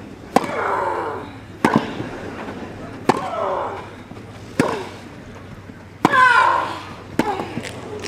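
Tennis rally on a grass court: a ball struck back and forth by racquets, six crisp hits about a second and a half apart. Most hits come with a loud vocal grunt from the player that falls in pitch.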